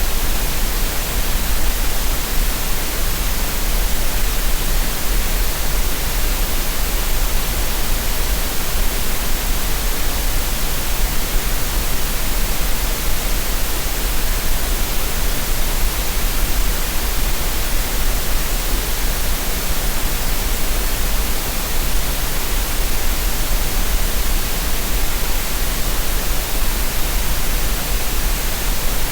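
Synthetic green noise: a steady, even hiss that stays the same throughout, with no tones or separate events.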